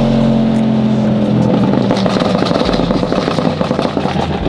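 Sam's Mercedes-AMG, fitted with new downpipes and a tune, running hard on the road. Its exhaust holds a steady note for the first second or so, then turns rougher after about a second and a half.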